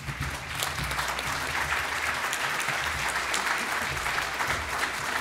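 Audience applauding, the clapping growing fuller about a second in and then holding steady.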